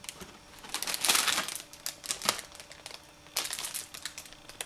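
Clear plastic wrapper on a frozen pancake-and-sausage stick crinkling in several irregular bursts as the stick is handled and lifted out of its cardboard box.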